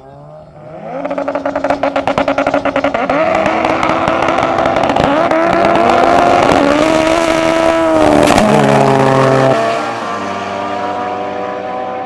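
Drag cars, among them a front-wheel-drive Honda Civic, launching off the line. A rapid stuttering rev-limited engine note gives way to hard acceleration, its pitch climbing and dropping back at each upshift through several gears, with a sharp crack near the top of the run. The engine note falls away near the end as the cars lift off at the end of the quarter mile.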